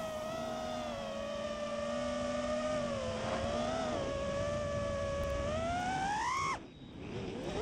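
Racing quadcopter's brushless motors whining, the pitch steady and then climbing about six seconds in. The whine cuts out abruptly for about a second, then winds back up near the end.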